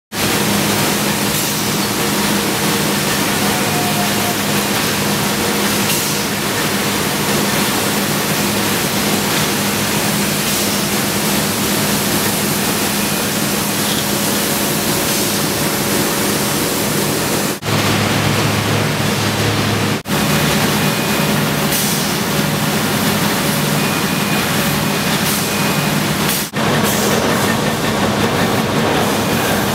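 Steady din of corrugated box-making machinery and roller conveyors on a factory floor: a dense mechanical noise with a low hum. It breaks off for an instant and changes abruptly three times, at about 17.5, 20 and 26.5 seconds.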